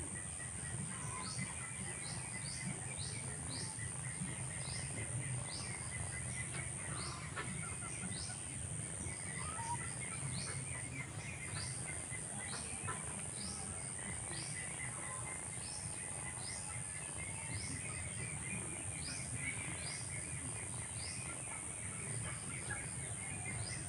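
Outdoor ambience: a steady, high-pitched insect drone with short, high chirps repeating about once or twice a second, over a low, steady rumble.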